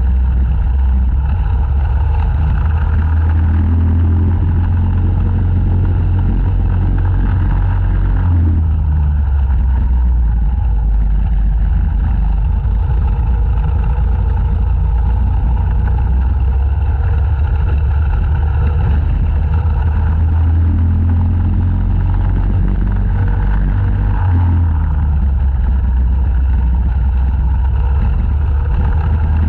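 Racing go-kart engine heard onboard at speed, its pitch rising and falling in places, over a heavy low rumble.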